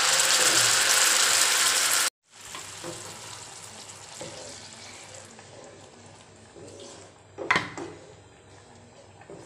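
Loud sizzling as a ground masala paste of chillies, spices and onion is poured into hot oil and fried onion in a frying pan; it cuts off abruptly about two seconds in. After that the paste sizzles quietly while a wooden spatula stirs and scrapes it, with one sharp knock about seven and a half seconds in.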